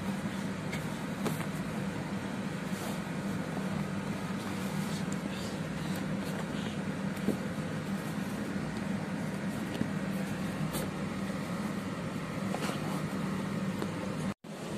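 Steady low background hum, with a few faint clicks and rustles as a cardboard phone box is handled and opened. The sound drops out for an instant near the end.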